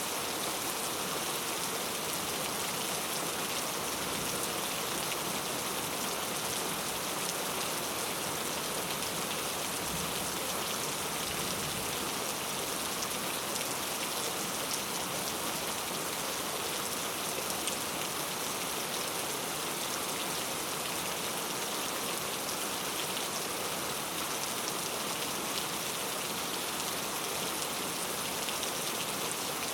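Heavy rain falling steadily, a dense unbroken hiss of drops on hard surfaces.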